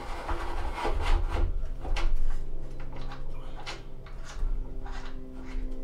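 A 14-inch Celestron telescope's dovetail bar scraping and rubbing as it is slid along an iOptron CEM70 mount's saddle, with several short knocks and clicks among the rubbing.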